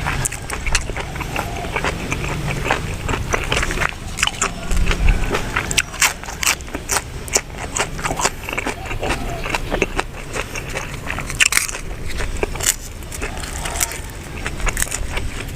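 Close-up chewing and mouth sounds of a person eating spicy buffalo-meat laab: a steady run of quick, irregular clicks and smacks.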